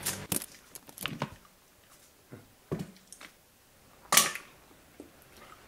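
King crab leg being cracked and its meat pulled from the shell: a few sharp cracks and snaps with quiet between them, the loudest about four seconds in.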